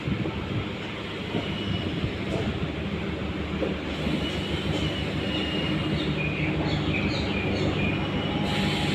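Diesel electric multiple unit (DEMU) train running into a station, its diesel engine humming steadily and growing slowly louder as it comes closer. From about four seconds in, short high-pitched squeals come from the wheels.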